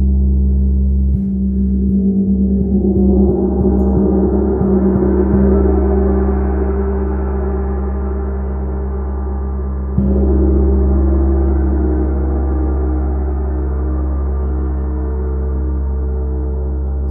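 Large chau gong played strongly with a felt mallet, ringing with a deep hum and many shimmering overtones. The shimmer swells over the first few seconds, and a fresh strike about ten seconds in sets it ringing loudly again, then it sustains and slowly fades.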